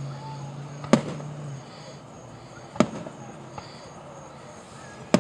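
Fireworks exploding: three sharp bangs a second or two apart, each with a brief echoing tail, and a fainter pop between the last two.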